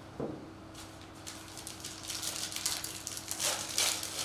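Foil wrapper of a trading-card pack crinkling and tearing as it is pulled open by hand, a dense crackle that grows louder in the second half.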